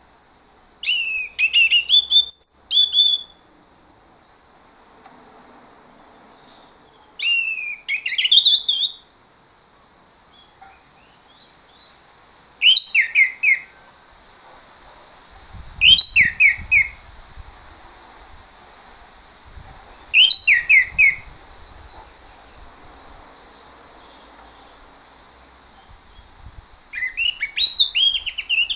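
Orange-headed thrush singing: about six short phrases of rapid, falling whistled notes, a few seconds apart, over a steady high hiss.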